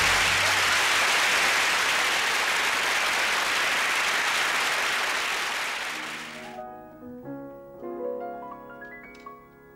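Studio audience applauding; the applause fades out about two-thirds of the way through. A solo piano then starts playing the introduction to a song.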